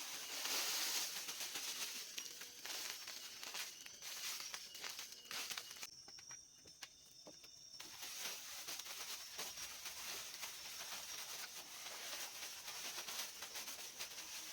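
Irregular crackles and small clicks, close and uneven, over a steady high-pitched insect drone from the forest. The drone drops out for about two seconds around six seconds in.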